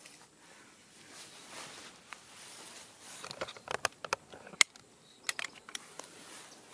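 Handling noise from a camera being picked up and turned by hand: a faint rustle, then a quick run of small clicks and knocks in the second half, one sharper than the rest.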